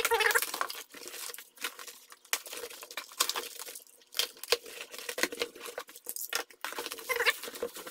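Box cutter slitting packing tape and cardboard on a shipping box, heard as irregular scrapes and clicks, with cardboard rustling and bubble wrap crinkling as the flaps are pulled back.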